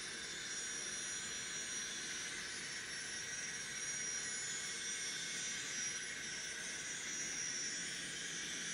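N-scale sound-equipped model of a Union Pacific GTEL gas turbine-electric locomotive running, its onboard sound decoder playing a steady jet-like turbine rush through the model's small speaker.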